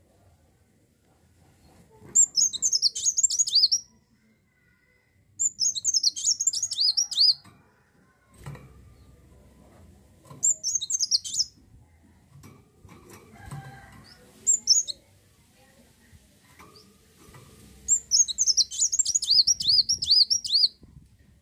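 Kolibri wulung sunbird singing: four phrases of rapid, high-pitched twittering, each one to three seconds long, with a brief single call between the third and fourth.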